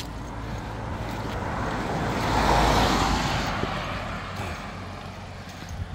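A car driving past on the road alongside, its tyre and engine noise swelling to a peak about two and a half seconds in and then fading away.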